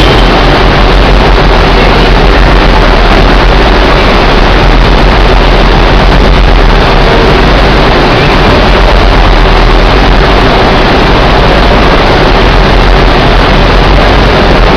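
SMI WP450 wraparound carton packer and its conveyors running: loud, steady machine noise with a low hum underneath.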